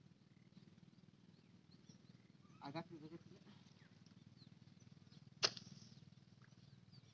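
A long-handled hoe striking muddy ground in a rice field: two sharp blows, one about five and a half seconds in and one at the very end. A brief animal call sounds a little under three seconds in, with faint bird chirps behind.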